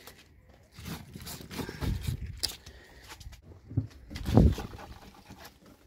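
Irregular low thumps and knocks, like objects being handled or moved, with the loudest thump about four and a half seconds in.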